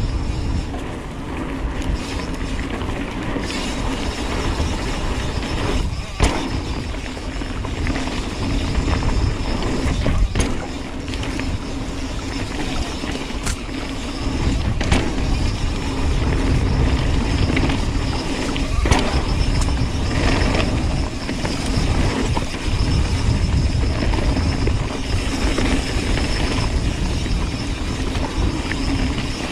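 Mountain bike descending a dirt singletrack: wind noise over the action camera's microphone and tyres rolling on dirt, with scattered sharp knocks and clatters from the bike over bumps.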